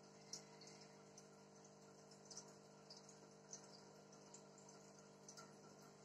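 Faint bubbling from an aquarium air stone: irregular small pops of bubbles breaking at the water surface, roughly two a second, over a steady hum.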